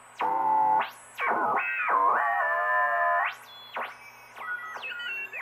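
Homebuilt 40-meter regenerative receiver being tuned across the band through a loudspeaker: loud whistling beat tones that slide down in pitch, hold steady and slide again as the dial passes over signals. The tones drop out briefly about a second in, and fainter sweeps follow near the end.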